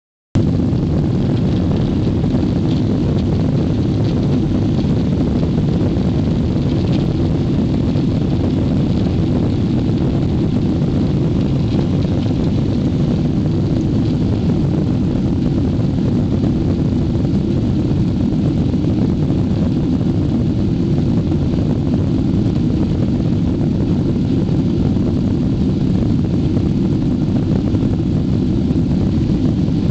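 Steady deep rumble inside a jet airliner's cabin as its engines run and the plane rolls along the runway for takeoff.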